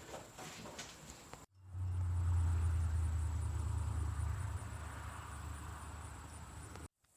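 Train going by: a strong, steady low rumble with a hissing haze above it, which starts abruptly about a second and a half in, fades over the last couple of seconds and cuts off suddenly near the end.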